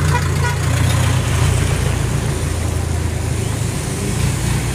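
Low, steady engine rumble of a Mazda Titan light truck passing close by in street traffic, loudest about a second in.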